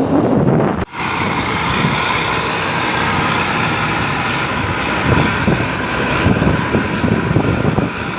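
Road noise while following a bus: the bus's engine and exhaust run steadily, with wind buffeting the microphone. The sound cuts out briefly about a second in.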